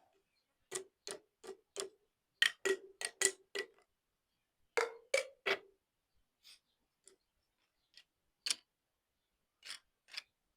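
Glass tapped or clinked in an irregular run of sharp taps, each with a short ring at the same pitch. About a dozen come close together in the first half, then a few fainter, scattered taps follow.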